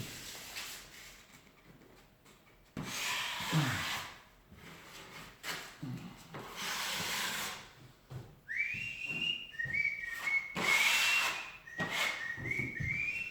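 Drywall taping knife scraping joint compound along the wall in separate strokes of about a second each, a few seconds apart. From about eight seconds in, a person whistles a tune of stepped notes over the strokes.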